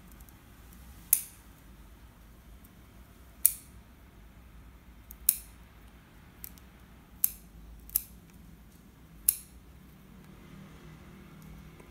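Bonsai scissors snipping through the roots of a cypress during root pruning: six sharp snips a second or two apart, with one fainter click between them.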